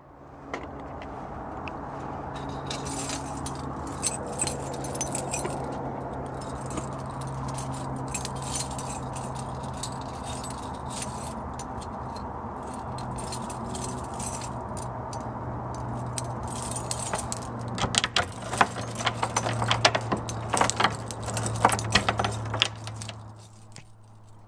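Keys jangling and rattling in quick metallic clicks over a steady low hum. The jangling is busiest toward the end and fades out just before it.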